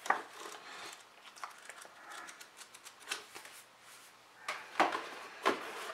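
Paper and thin card being handled: a folded manual and a sticker sheet drawn out of a small cardboard box. Soft rustling with a few short crackles or taps, the sharpest about three seconds in and near the end.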